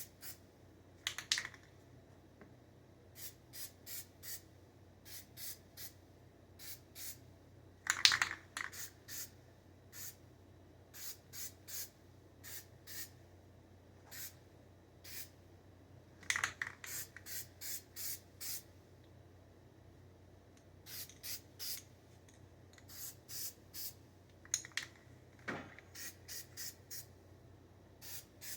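Spray paint hissing from an aerosol can in many short bursts, grouped in quick runs, with a few louder clattering knocks among them.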